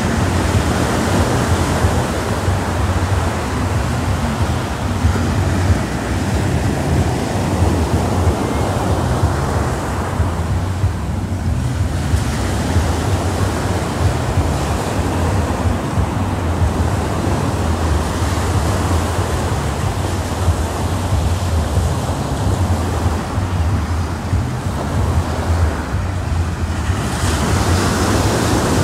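Small waves breaking and washing up a sandy beach in a steady wash of surf, with wind on the microphone adding a low rumble.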